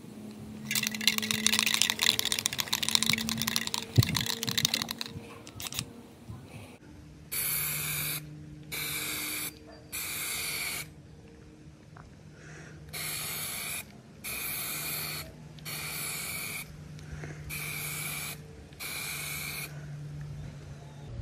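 Aerosol can of Plasti Dip rubber coating, fitted with a can-gun trigger, spraying in about nine short hissing bursts of under a second each with gaps between: the spray is stopped at the end of each even back-and-forth pass of a light first coat. Before the bursts, about a second in, comes a few seconds of dense rattling hiss.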